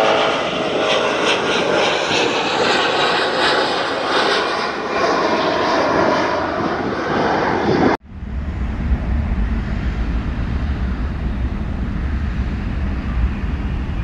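Jet engines of a twin-engine airliner climbing away after take-off, a loud broad roar with shifting tones in it. About two-thirds of the way through it cuts off abruptly to a steady low rumble.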